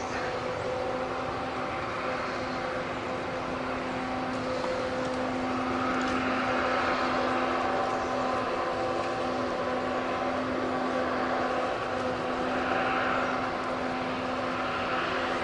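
Combine harvester running steadily: a constant engine hum with a rushing noise that swells a couple of times.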